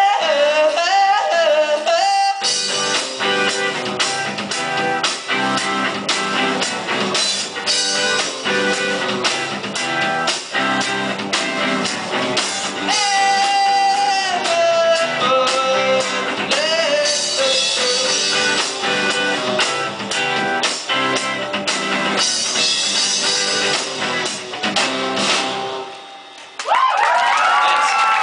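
Indie rock band playing live: lead vocals over electric guitars and bass with a steady beat. Near the end the music drops away briefly, then comes back loud with a held note that falls in pitch.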